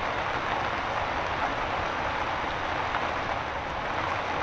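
Steady rain falling, an even hiss with no pauses or breaks.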